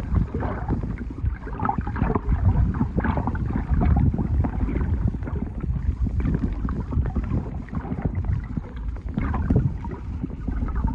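Underwater ambience in shallow sea water: a steady low rumble of moving water with many small scattered clicks and crackles.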